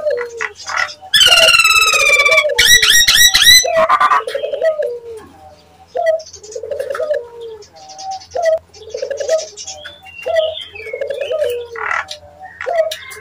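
Nias hill myna calling, used as a lure call to make other mynas answer: loud ringing whistles, then a quick run of warbled notes about two to three and a half seconds in, over a low hoarse note repeated about once a second, with scattered higher chirps.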